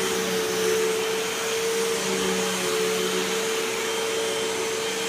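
Vacuum cleaner running steadily: a constant motor hum over the rush of air.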